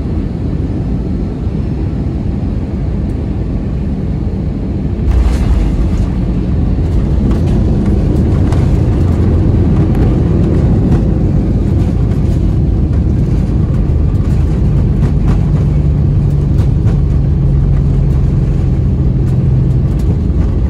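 Cabin noise of an Airbus A320-200 landing: a steady rumble of engines and airflow that turns abruptly louder and rougher about five seconds in, as the jet touches down and spools up reverse thrust, then stays loud through the rollout.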